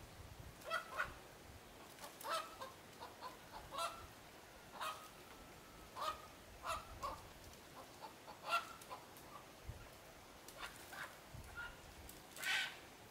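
Farm poultry calling over and over: short pitched calls, sometimes several in quick succession, with a longer, louder call near the end.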